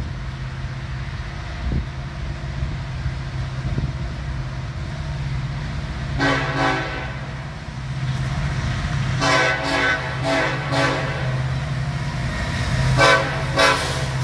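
Approaching BNSF SD70ACe diesel locomotive blowing its air horn in a series of blasts, starting about six seconds in, over the steady low rumble of the oncoming train.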